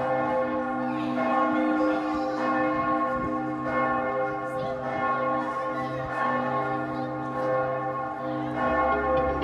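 Church bells of Giotto's Campanile ringing: repeated strikes about once a second or so, each stroke ringing on under the next in a sustained blend of many tones.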